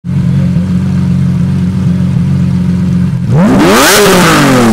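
Lamborghini Aventador SV's naturally aspirated V12 idling loudly and steadily while parked, then free-revved once about three seconds in, its pitch rising sharply and falling back.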